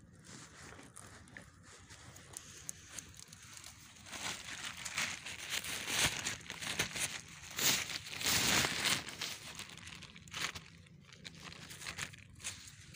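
A plastic bag crinkling and rustling in someone's hands as caught fish go into it, in irregular bursts that are loudest in the middle.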